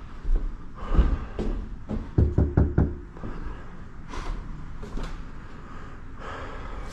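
Knocking on an apartment door: a single thump about a second in, then four quick knocks, followed by a few heavy breaths after climbing the stairs.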